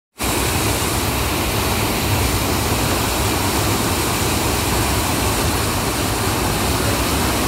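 The Clark Fork River running high at about 18,000 cfs, a loud, steady rush of fast water with a deep rumble underneath.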